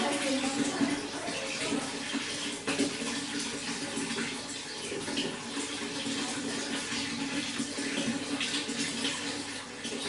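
Running water splashing and trickling steadily, a continuous rush with many small splashes.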